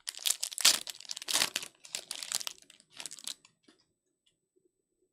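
A card pack's plastic wrapper being torn open and crumpled by hand, in a quick run of crinkling rips that stop about three and a half seconds in.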